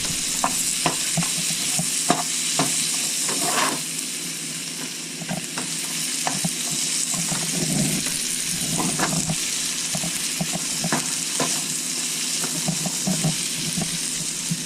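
Sliced prickly pear cactus pads (nopales) sizzling as they fry in butter in a pan, with frequent light clicks and scrapes of a utensil stirring them against the pan.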